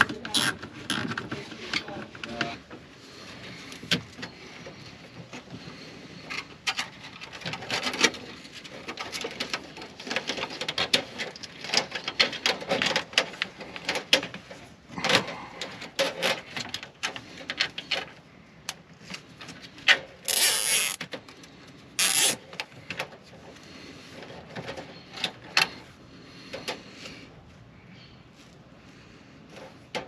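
Hands working a diesel heater fuel line and its hose clamps into place: irregular clicks, knocks and rubbing of hose and metal fittings, with two short hisses about two-thirds of the way through.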